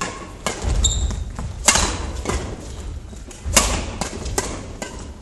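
Badminton doubles rally: sharp cracks of rackets striking the shuttlecock, the loudest two about two seconds apart, over thudding footsteps on a wooden court floor. A brief shoe squeak comes just before a second in.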